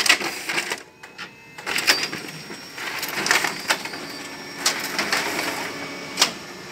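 Ricoh Aficio MP 5002 office copier running a two-sided copy job: a steady mechanical whir with repeated clicks and clacks, and one sharp click near the end.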